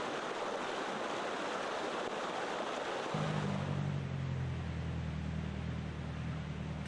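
Rushing river water, a steady hiss of flowing water. About three seconds in, a steady low hum joins it.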